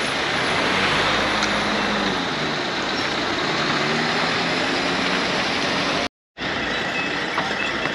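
Road traffic noise: vehicle engines running nearby under a steady rush of noise. The sound cuts out for a moment about six seconds in, then resumes.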